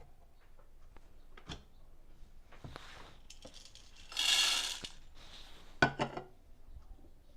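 Weighed coffee beans being handled and tipped into a Breville Smart Grinder Pro burr grinder, ready for grinding: scattered light clicks and clinks, a brief rattling rush of beans about four seconds in, and a couple of sharp clicks about six seconds in.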